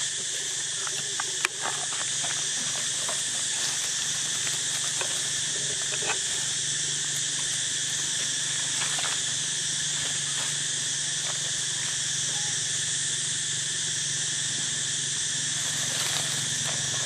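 Steady, high-pitched insect chorus droning without a break, with scattered light crackles of dry leaves and one sharp click about a second and a half in.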